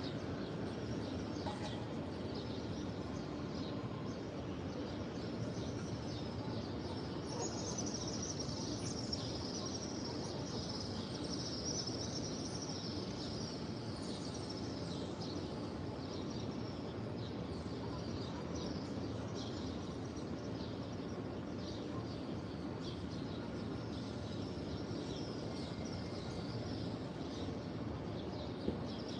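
Many small birds chirping continuously in high-pitched, twittering calls, densest in the middle, over a steady low background din of ambient noise. A single brief click comes near the end.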